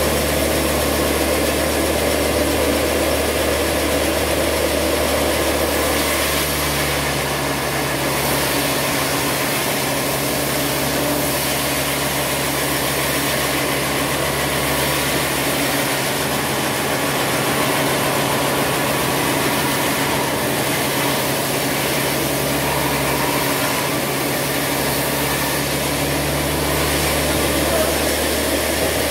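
Band sawmill running with a steady, loud machine hum while a log on the carriage is pushed through the blade. The low part of the hum dips and recovers a few times through the run.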